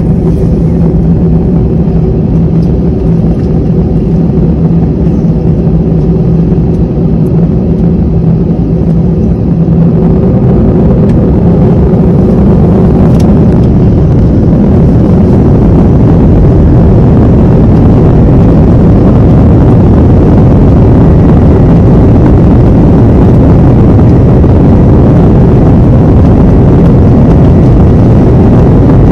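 Airbus A321 jet engines running steadily with a low hum, then from about ten seconds in growing louder and rougher into a sustained rumble as thrust builds for the takeoff.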